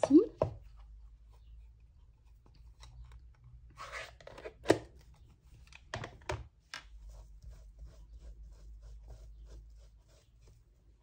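Plastic stamp pad cases and stamping supplies being handled: a short rustle about four seconds in, then a sharp snap and a few more clicks and taps, with faint small taps afterwards.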